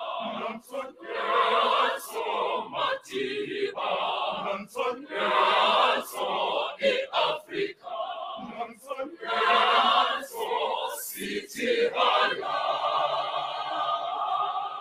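Mixed school choir of boys and girls singing together in short, punchy rhythmic phrases, with a long held chord near the end.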